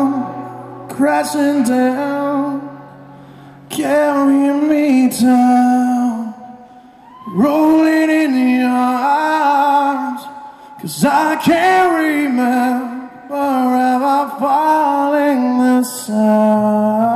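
Male rock vocalist singing live into a microphone through a hall PA. Long held notes with some vibrato come in phrases, with short pauses between them where the backing is barely heard.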